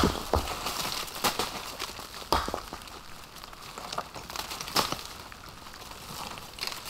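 Dry leaf litter rustling and crunching as someone works and shifts about on a leaf-covered forest slope, with scattered sharp cracks of twigs or debris at irregular moments.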